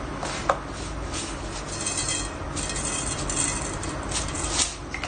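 Fenugreek seeds sprinkled into hot oil in a steel pan, sizzling, with the hiss growing brighter about two seconds in and a couple of light taps against the pan.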